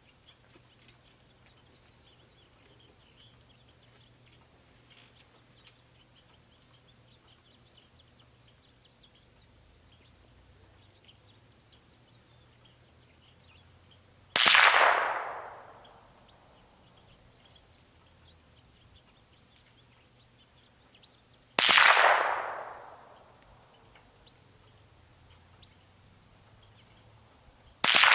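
.22 LR semi-automatic rifle fired three times, about seven seconds apart, each sharp crack trailing off in a long echo. Faint bird chirps are heard in the first half.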